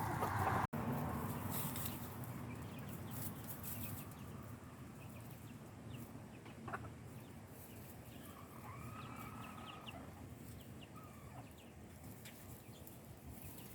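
Chickens clucking, with a scatter of short calls.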